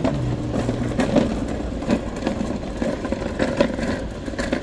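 A motor vehicle's engine hums briefly and fades within the first second, followed by scattered sharp knocks and clicks.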